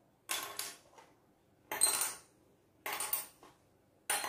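Small orange balls dropped one at a time into small glass jars, clinking against the glass four times about a second apart, one clink with a brief glassy ring.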